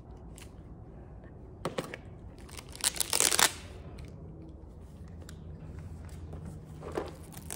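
Cardboard box being opened by hand: a sharp click about a second and a half in, then a second of tearing and crinkling of cardboard and plastic packaging around three seconds in, and a softer rustle near the end.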